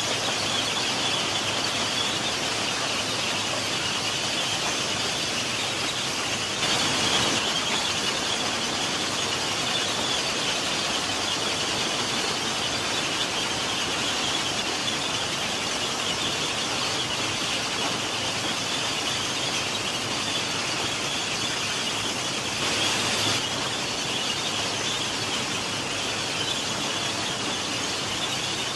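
Plasser & Theurer PM 1000 URM track formation rehabilitation machine running, giving a steady high-pitched mechanical noise. It swells briefly louder twice, about seven seconds in and again near twenty-three seconds.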